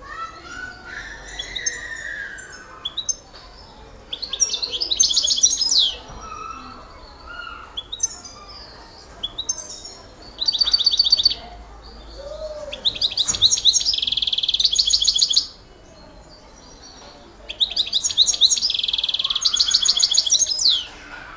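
A songbird singing in fast trills: rapid runs of repeated high notes in bursts of one to three seconds, the longest and loudest in the second half, with quieter twittering between the bursts.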